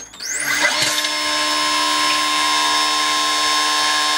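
Electric oil pump motor on a homemade jet engine's oil system spinning up with a quick rising whine, then running at a steady high whine while it builds oil pressure.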